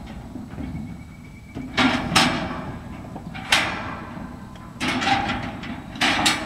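A steel stock trailer holding cattle clanging and banging: about five loud bangs, each ringing out, at uneven gaps.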